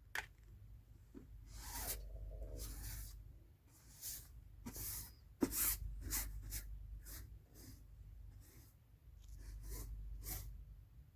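Large paintbrush stroked across a surface for a foley recording of painting: a series of separate brushing swishes, some about a second long and others short.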